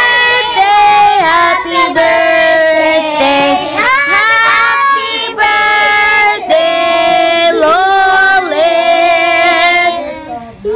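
A group of children and women singing a birthday song together in held, sung notes; the singing fades out shortly before the end.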